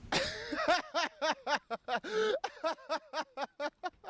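A man laughing hard in a fast run of short 'ha' bursts, about four or five a second, breaking off and starting again.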